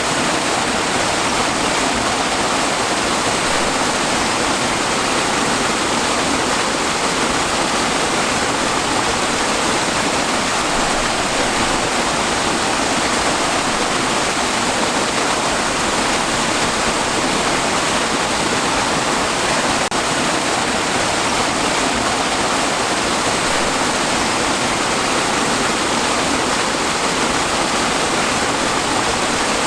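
Waterfall: water pouring and splashing in a loud, steady, unchanging rush.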